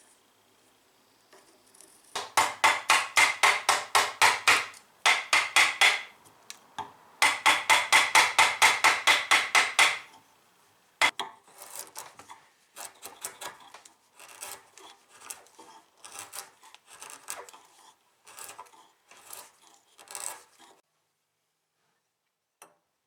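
Hand rasping or sanding strokes on the wooden spar: quick back-and-forth strokes, about four a second, in three loud runs, then lighter, more irregular strokes after a sharp click, stopping shortly before the end.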